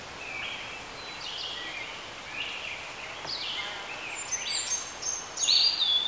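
Several small birds calling at once, short high chirps and whistled notes overlapping, busier from about four seconds in, over a steady outdoor background hiss.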